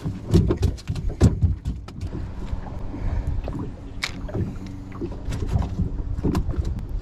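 Knocks, taps and clicks of fishing gear being handled in a kayak: a rod and spinning reel bumping the plastic hull, over a steady low rumble. The loudest knocks come in the first second and a half, and scattered clicks follow.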